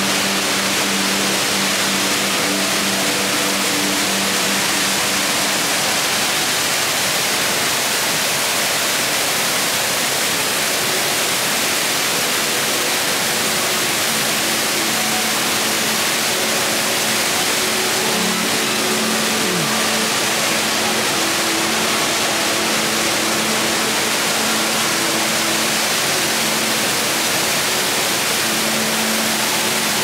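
Steady, loud rush of the Rain Vortex, a tall indoor waterfall pouring from a glass dome's opening into a round pool below. Faint low held tones sit underneath at times.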